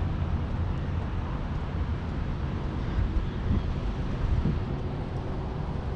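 Wind buffeting the microphone outdoors: a steady low rumble that rises and falls, with no distinct events.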